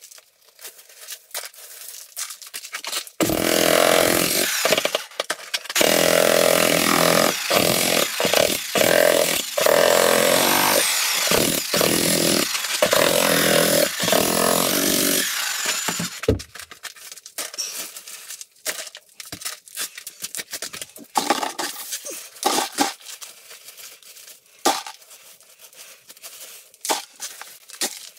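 Electric jackhammer chiselling into a concrete floor slab, running in bursts with short pauses from about three seconds in until about sixteen seconds in. Before and after it, broken concrete chunks clatter and scrape as they are gathered up by hand.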